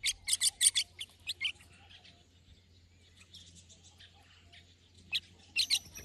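Brown-breasted bulbul fledgling giving sharp begging calls for food: a quick run of about ten chirps in the first second and a half, then a few more near the end.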